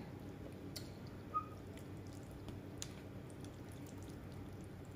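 Plastic spoon and chopsticks stirring noodles in broth, with a few faint clicks and drips over low background hiss.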